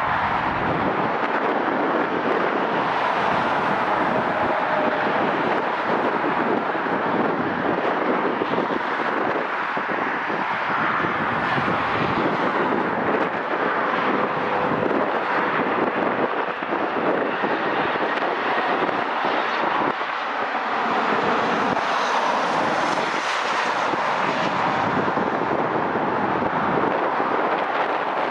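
Airliner's engines running on a crosswind approach and landing, a loud, steady rush of engine noise with a faint whine, swelling slightly near the end.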